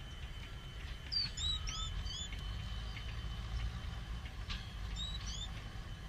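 A small bird chirping in two short runs of quick, hooked chirps, about a second in and again near the end, over a steady low rumble.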